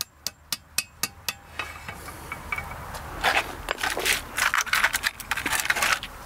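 A hammer tapping a sleeved masonry anchor into a drilled hole in the wall: about six quick, even taps, some four a second, ending a little over a second in. After that come a few seconds of irregular rustling and clinking of small hardware being handled.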